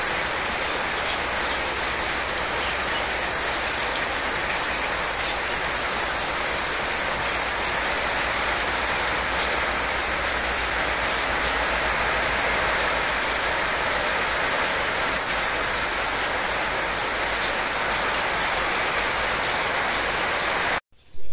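Heavy rain pouring down steadily, a dense even hiss of rain on the ground and surfaces. It cuts off suddenly just before the end.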